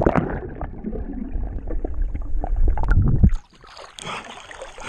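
Muffled underwater sound of river water churning around a submerged action camera, deep and dull with the high end cut off. It drops away abruptly after about three and a half seconds. Soon after, the camera breaks the surface and open-air water splashing returns.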